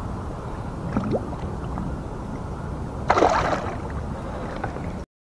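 Released bass splashing into the water beside a kayak about three seconds in, over a steady low rumble of wind and water on the microphone; the sound cuts off suddenly near the end.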